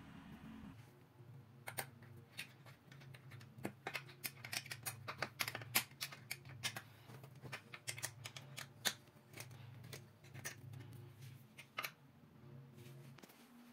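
Allen key clicking and scraping against the screw heads and steel roller bracket of an IKEA PAX sliding door as the screws are turned: an irregular run of sharp little metal clicks that starts about two seconds in and stops shortly before the end, over a steady low hum.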